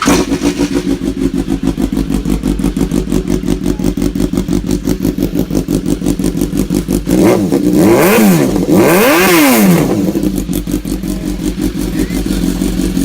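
BMW S1000R inline-four engine idling cold through an Akrapovic Megaphone silencer and stainless header with no catalytic converter, very loud. Twice, a little past halfway, the throttle is blipped and the revs rise and fall before it settles back to idle.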